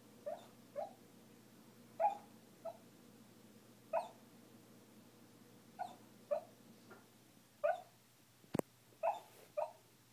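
Sleeping puppy whimpering and yipping in her sleep: about a dozen short, high yips, often in quick pairs, a second or two apart. A single sharp click comes near the end.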